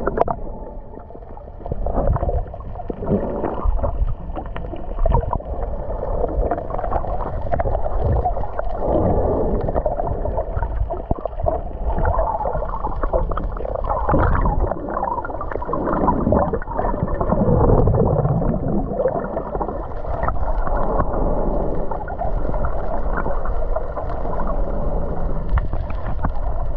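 Muffled underwater sound picked up by a camera below the surface: gurgling, rumbling moving water that swells and fades irregularly, with no clear high sounds.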